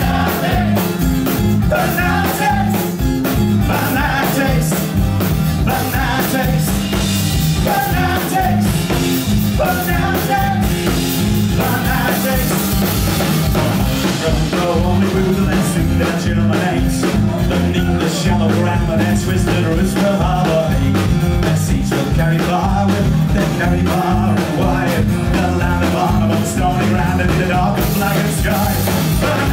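Live rock band playing with a steady beat: strummed acoustic guitar, electric bass and drum kit, with a melody line over the top.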